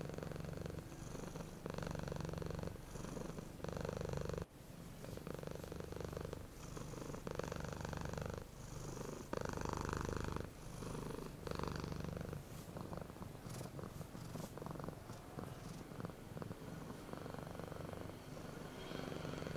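Domestic cat purring steadily, the low rumble swelling and easing in alternating pulses with each breath in and out, about every second and a half.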